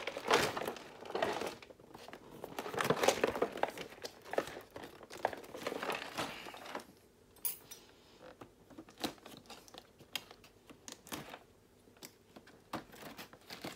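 Cardboard box being handled and opened by hand. For the first seven seconds or so cardboard rubs and scrapes, then a run of light taps and clicks follows.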